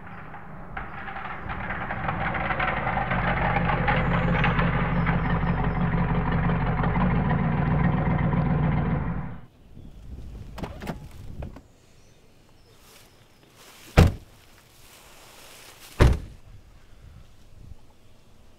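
A car's engine running, growing louder as it approaches, then stopping abruptly about nine seconds in; a little later two car doors slam shut, about two seconds apart.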